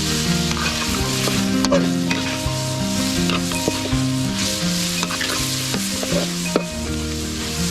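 Pork and chilli frying in a pan with a steady sizzle, stirred with a utensil that now and then clicks against the pan.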